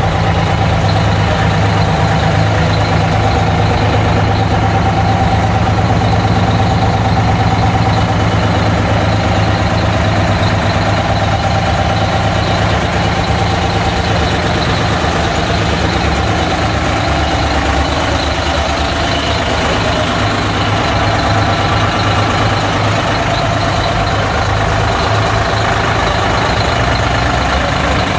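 Heavy truck's diesel engine running steadily close by.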